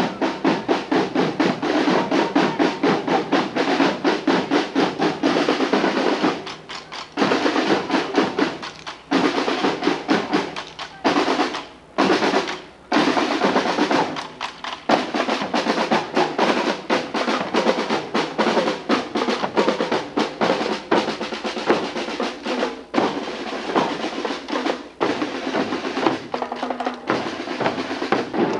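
Marching band drum line playing on snare and bass drums: rapid snare strokes and rolls over bass-drum beats, with a few brief pauses around the middle.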